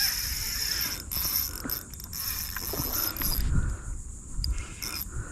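Steady high-pitched insect buzzing that breaks off briefly a few times and fades out about three and a half seconds in, over an uneven low rumble.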